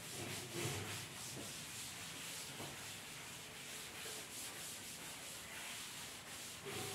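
Cloth duster rubbing across a chalkboard, soft back-and-forth wiping strokes as the board is erased.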